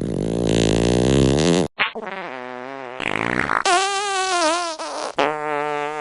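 Fart sound effects played back to back: several long, buzzy, pitched farts whose pitch wobbles up and down, each cut off abruptly as the next begins.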